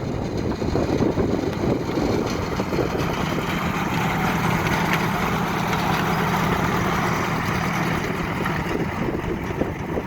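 Locomotive No. 99 running past, a steady low hum that builds and fades in the middle, with wind buffeting the microphone.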